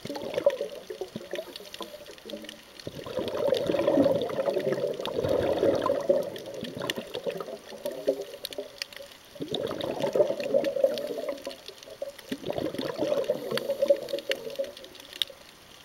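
Underwater bubbling of a scuba diver's exhaled breath leaving the regulator, in about three long bursts of a few seconds each with quieter gaps between them.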